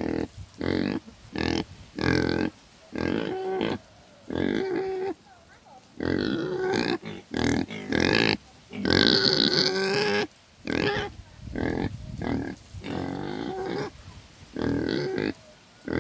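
Domestic pig grunting in a rapid series of short calls with brief gaps. The loudest call is a longer, higher squeal about nine seconds in.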